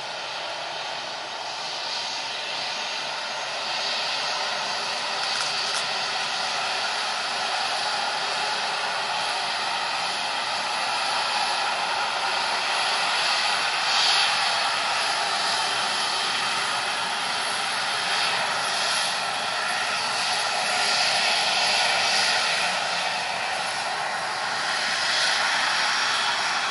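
Jet engines of a Boeing 737 freighter running at low thrust as it taxis, a steady whine and rush that grows gradually louder as the aircraft comes closer.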